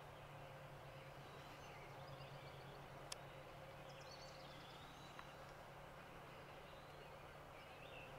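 Faint background of distant songbirds calling, with short gliding and trilling phrases, over a low steady hum. A single sharp click about three seconds in is the loudest moment.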